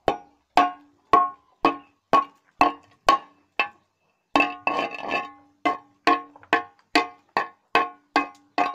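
A used steel pipe struck repeatedly with a metal tool, about two ringing blows a second, to knock loose its rust scale. After a brief pause a little before the middle, there is a short burst of rattling and scraping, then the steady blows resume.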